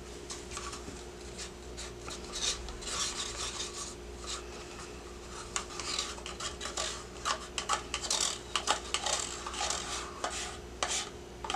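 Wooden craft sticks stirring mica powder into soap batter, scraping against the sides of plastic pour cups. From about two seconds in there is a run of short, irregular scrapes and rubs.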